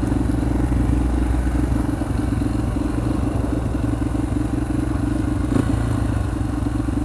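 Four-stroke dirt bike engine idling steadily, with no revving.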